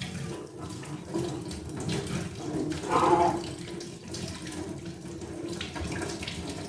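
Tap water running into a kitchen sink while something is rinsed under it, with louder splashing about three seconds in.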